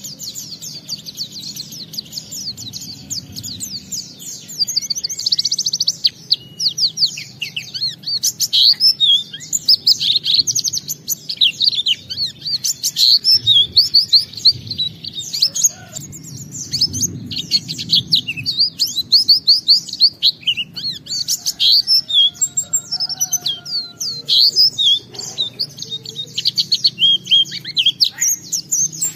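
Pleci (white-eye) singing a long, rapid twittering song of high chirps. It is quieter for the first few seconds and louder from about four seconds in, over a low steady hum.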